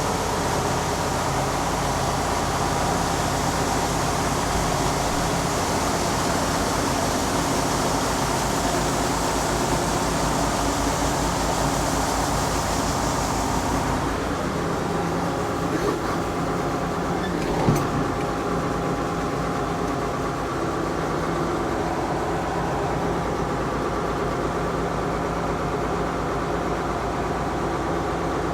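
Tractor engine running steadily under load, with a low, even pulse. A high hiss over it drops away about halfway through, and there is a single short knock a few seconds later.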